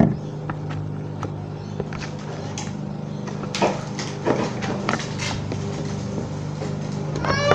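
Sticky slime being handled, giving scattered soft clicks and smacks over a steady low hum. A cat meows at the very end.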